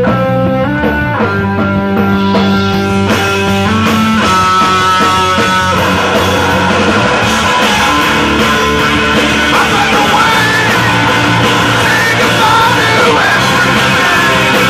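Live rock band of electric guitar, bass guitar and drums playing loudly. Held chords change step by step for the first few seconds, then the playing grows denser, with wavering high notes for a while.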